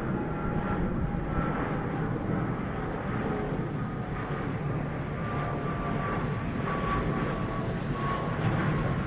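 Twin jet engines of an Ethiopian Airlines Boeing 787 Dreamliner climbing out after takeoff: a steady rumble with faint whining tones above it.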